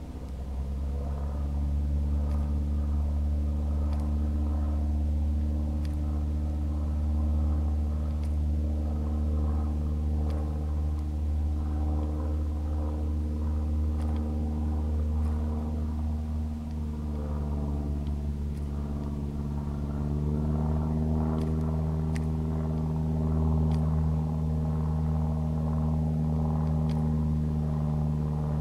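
Motor engine idling: a steady low hum whose pitch steps up slightly about twenty seconds in.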